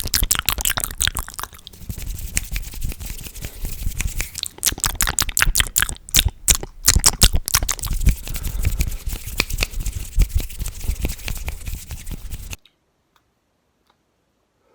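Close-miked ASMR trigger sounds: a dense run of crackling, wet clicks that cuts off suddenly about twelve and a half seconds in.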